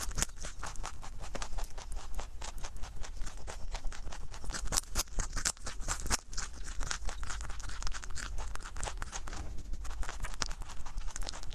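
A rabbit chewing raw carrot, close-miked: fast, crisp crunching that runs on without a break.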